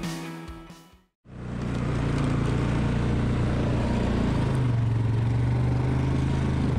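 Music fades out in the first second. Then an ATV engine starts up loud and runs steadily as the quad moves.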